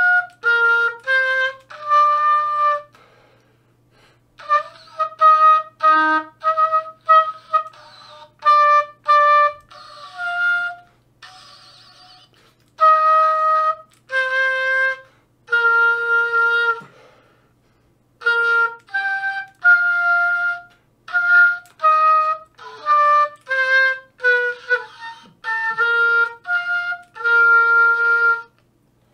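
Oboe played solo: a run of separate, clearly pitched notes in short phrases, with brief breaks between the phrases.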